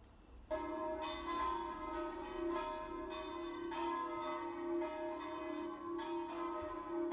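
Recording of church bells ringing in a belfry. The bells start about half a second in and are struck roughly once a second over a steady ringing hum.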